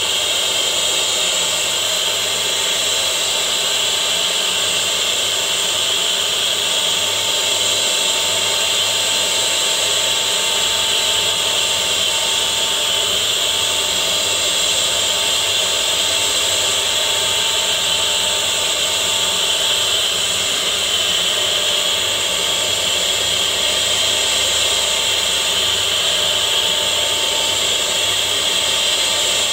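CNC wood router's spindle running at speed while its end mill cuts letter outlines into a wooden board: a steady high whine mixed with the hiss of the cut, unchanging throughout.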